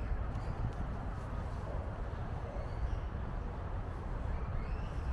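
Outdoor city ambience: a steady low rumble with no distinct events.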